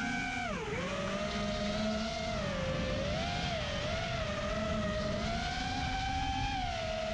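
FPV quadcopter's brushless motors whining, the pitch dropping sharply about half a second in, then holding fairly steady with small rises and dips as the throttle changes.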